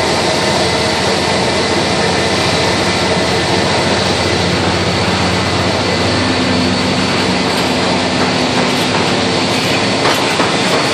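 An airport baggage tug towing a train of baggage carts rolls past close by about halfway through, over a steady jet whine from the aircraft on the apron.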